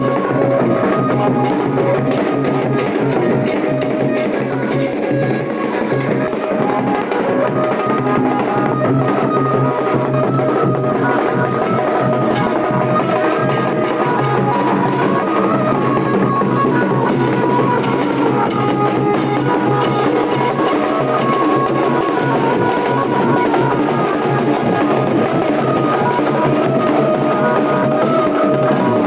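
Nashik dhol ensemble drumming a fast, loud rhythm on dhol, with a held melody line sounding over the drums.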